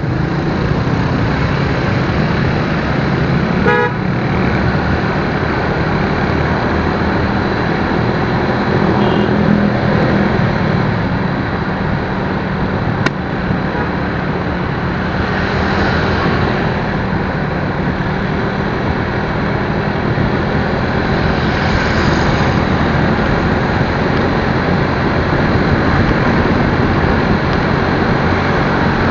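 Road traffic noise with a steady engine hum and rushing road noise. A short horn toot sounds about four seconds in.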